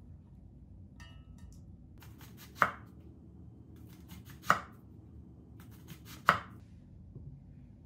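Chef's knife slicing an onion thinly on a wooden cutting board: three sharp knocks of the blade on the board, a little under two seconds apart, each just after a few faint crisp cuts through the onion.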